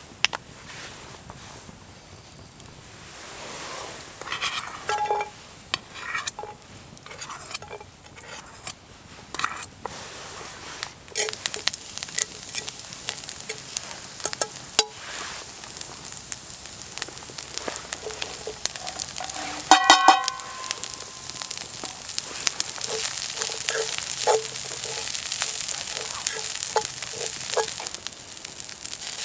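Food sizzling in a frying pan as fried ramen is cooked, with clicks and scrapes of a utensil stirring in the pan. About 20 s in comes a single loud ringing metal clink. The sizzling grows louder near the end.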